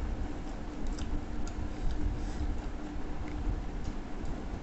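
Eating by hand from a plate: a few faint, irregular small clicks and mouth sounds of chewing, over a steady low hum.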